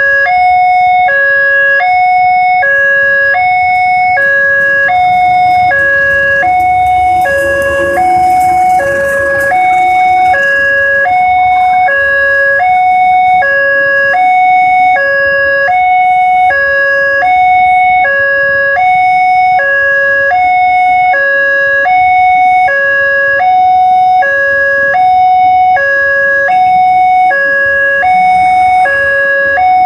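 Level-crossing electronic warning bell sounding a loud, steady two-note chime, high and low notes alternating about every half second, while a passenger train goes by. The noise of the passing train swells about seven seconds in and fades by about eleven seconds.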